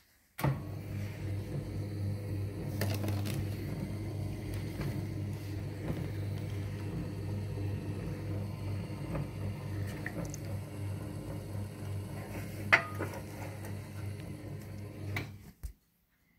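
Electric creasing machine's motor running with a steady low hum. It switches on about half a second in and cuts off shortly before the end, with one sharp click near the end.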